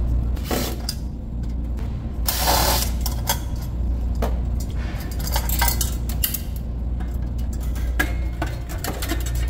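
Metal clinks, knocks and rattles of a small condenser coil and its sheet-metal bottom support being unscrewed and worked loose, with one short, louder scraping rush about two and a half seconds in. A steady low hum runs underneath.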